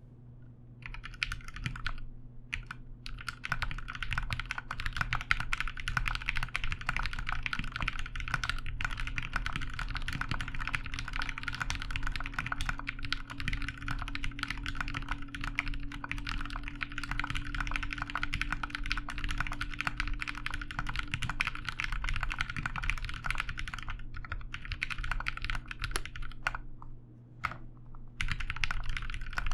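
Steady fast typing on a Sneakbox MGA Standard (Alice-layout) mechanical keyboard with lubed 67.5 g Gateron Black Ink linear switches, a PLA half plate and GMK keycaps: dense key clacks starting about a second in. The typing pauses briefly twice, once about two and a half seconds in and for about a second near the end.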